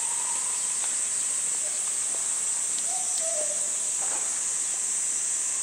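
Steady, high-pitched drone of a summer cicada chorus, with faint distant voices and a few soft ticks.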